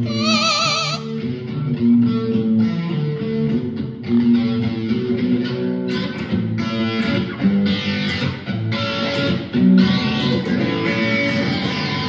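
Electric guitar played through a small amp: a continuous rock riff of pitched notes, with a high wavering note at the very start.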